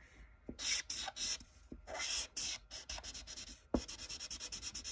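Marker scribbling back and forth on paper as a patch is coloured in: quick runs of scratchy strokes with short pauses, faster near the end, and a single light knock partway through.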